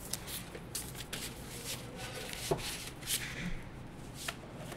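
Handling of graphics-card packaging: paper and cardboard rustling, with scattered light ticks as a leaflet is put down and a black protective sheet is lifted off the card in its box.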